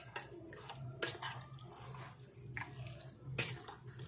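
Sliced pork belly being stirred with its marinade in a container: soft wet mixing noise with about four light knocks against the container.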